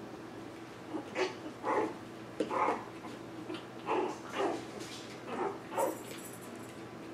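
Young puppies giving a string of about seven short yips and little barks while they play-fight.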